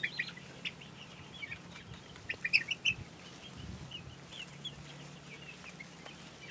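Flock of young chickens, four to six weeks old, peeping with many short high chirps, with a louder cluster of peeps about two and a half seconds in.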